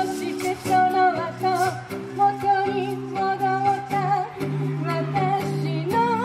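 Music: a lead melody with vibrato over held bass notes and chords that change every second or two.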